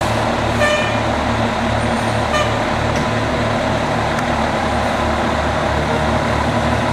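Fire truck's diesel engine running loud and steady with a low throb as the apparatus sets off on a call. Two brief high toots sound, under a second in and again about two seconds later.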